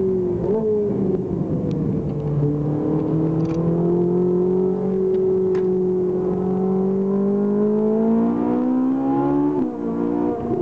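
Ferrari 458 Italia's 4.5-litre V8 heard from inside the cabin on track. The engine note falls over the first couple of seconds, with a quick rev blip about half a second in, then climbs slowly and steadily for several seconds. It drops sharply near the end at a fast gear change of its seven-speed gearbox.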